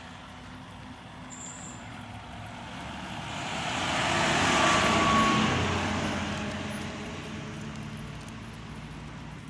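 Fire engine driving past: its engine and tyre noise grow louder as it approaches, peak as it passes about halfway through, then fade as it drives away.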